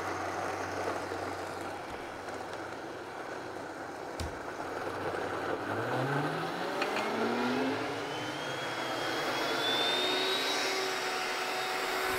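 Vitamix A3500 blender running its smoothie preset on a thick green smoothie with frozen mango. From about six seconds in, the motor's pitch rises steadily as the program ramps the blade speed up.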